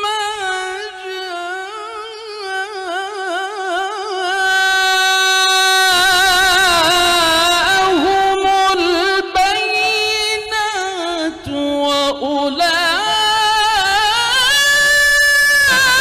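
A male Quran reciter's voice in melodic tilawah through a microphone, holding long ornamented notes that waver up and down. It grows louder about four seconds in and climbs to a higher held note near the end.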